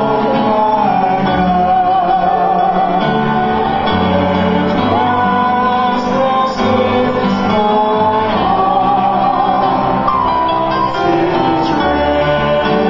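A man and a woman singing the responsorial psalm together through handheld microphones, their voices wavering with vibrato over a steady instrumental accompaniment.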